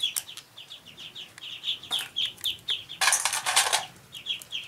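A steady run of quick, high chirps from birds, several a second. About three seconds in comes a short crackling rasp, the loudest sound, as river crab shells are prised apart by hand, with a few sharp shell clicks just before it.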